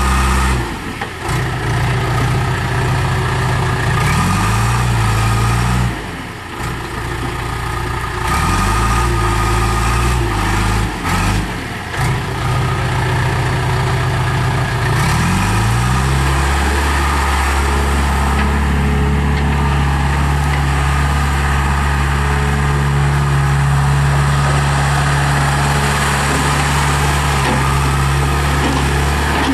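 1999 John Deere 310E backhoe loader's diesel engine running, its speed rising and falling several times in the first half, then holding steady at a higher speed.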